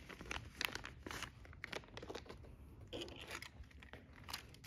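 Small clear plastic bag crinkling and rustling in the hands as a black foam microphone windscreen is taken out of it, in faint, irregular crackles.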